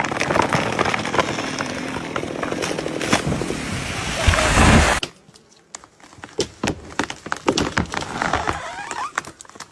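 Tree felling: a loud, dense rush of cracking wood and crashing branches that cuts off suddenly about five seconds in, followed by quieter scattered snaps and knocks.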